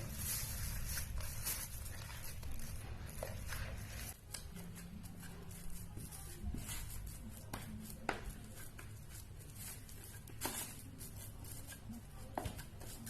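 Boiled cassava and sweet potato being pounded with palm sugar under a pestle to make getuk: irregular soft knocks and squashing sounds, about one every one to two seconds.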